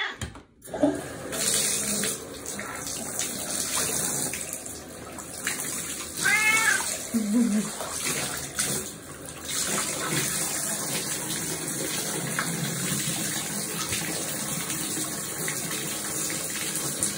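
Bathtub tap running in a steady stream, with a cat meowing once about six seconds in.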